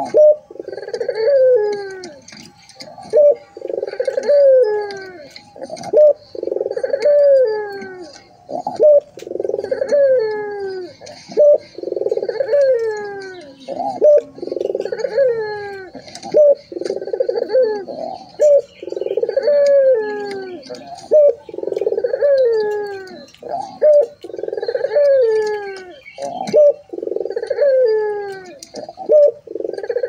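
Puter (Barbary dove) cooing over and over: each coo falls in pitch, with a phrase every second or two.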